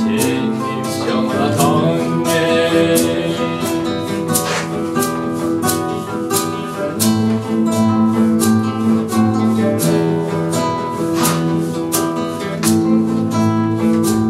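Two acoustic guitars playing a flamenco-style passage live, strumming chords, with sharp percussive clicks keeping a steady beat.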